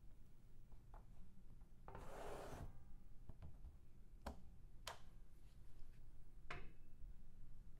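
Rubber screen-printing squeegee dragged across the mesh screen through enamel paste: one rubbing scrape lasting a little over half a second, about two seconds in. Three sharp clicks follow later.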